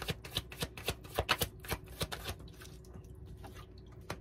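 Large tarot deck being shuffled by hand, cards tapping together about four times a second, then thinning out about two seconds in. Near the end a single sharp tap as a drawn card is laid on the table.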